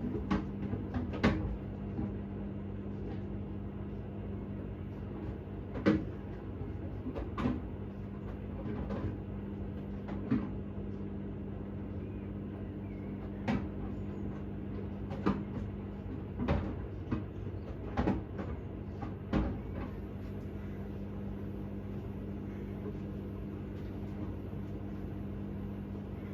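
Hoover H-Wash 600 washing machine running: a steady motor hum with irregular knocks and clicks every second or two as the load tumbles in the drum. The knocks stop about three-quarters of the way in, leaving only the hum.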